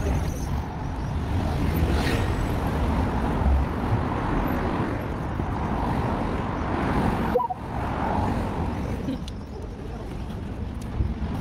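City street noise: traffic and passing cars with some indistinct voices, steady apart from a brief break about seven and a half seconds in.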